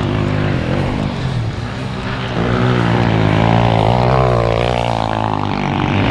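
Small four-stroke pit bike engines running: one idling steadily, and from about two and a half seconds in a second engine revs up and down as the other riders climb toward it.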